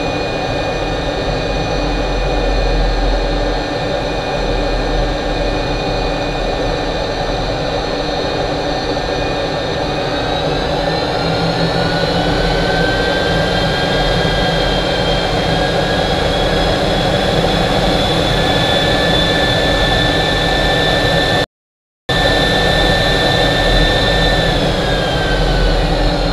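Jet engine heard from inside the cockpit: a steady roar with a high turbine whine that rises in pitch about ten seconds in, holds, climbs again a little later, and falls away near the end. The sound cuts out completely for about half a second a little past twenty seconds in.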